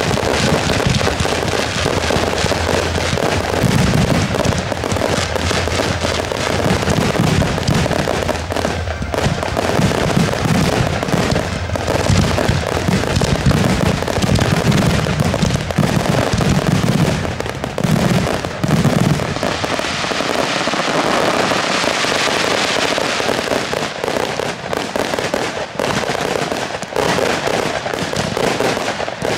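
Fireworks display: a dense, continuous barrage of aerial shell bursts and crackling, with the deep booms thinning after about twenty seconds.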